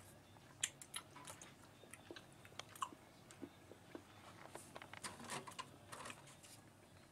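Faint chewing of a piece of chocolate, heard as scattered small clicks and crackles.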